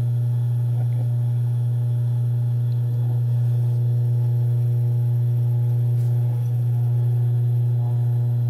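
Steady low electric hum with faint higher overtones from a sewing machine's motor running idle. No stitching is heard.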